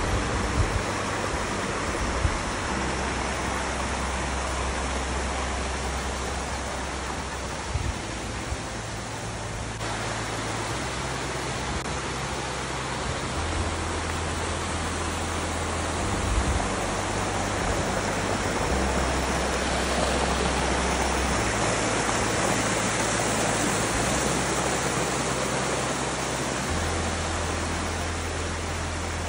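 Spring-fed creek running and splashing down small rock cascades: a steady hiss of water that grows a little louder past the middle.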